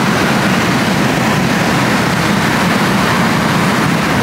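Twin-turbo V8 of a tuned Mercedes-Benz CLS 550, heard from inside the cabin, running at high speed with heavy road and wind noise: a steady, loud rumble.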